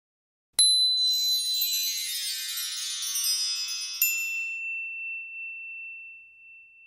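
Chime sound effect for an animated logo: a sudden shimmering cascade of many high ringing tones about half a second in, then a second bright ding about four seconds in that leaves one high tone ringing on and fading away.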